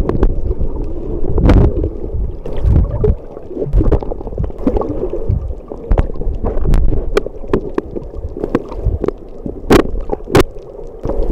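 Muffled underwater rumble and sloshing picked up by a submerged camera, with many irregular sharp clicks and knocks, the loudest near the end.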